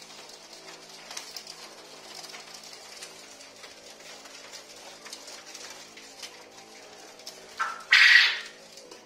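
Caged Japanese quail chirping softly, then near the end a loud two-part crow, a short note followed by a longer rolling one: the call of a male.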